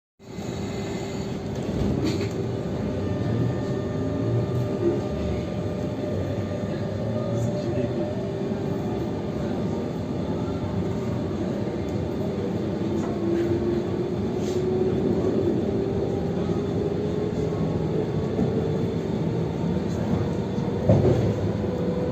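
Île-de-France commuter electric train running, its traction motors giving a steady whine with a second tone that slowly rises in pitch as it gathers speed, over dense running noise. A sharp clunk comes near the end.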